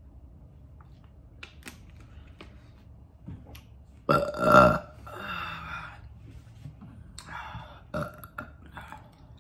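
A woman burps loudly about four seconds in, a pitched belch of about half a second followed by a breathy exhale. A second, shorter burp comes about eight seconds in, with small mouth clicks between.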